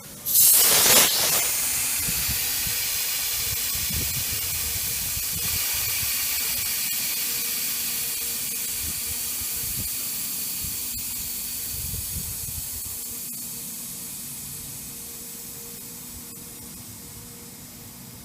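Compressed air venting: a sharp blast of hiss, then a steady hiss that slowly fades as the pressure drops.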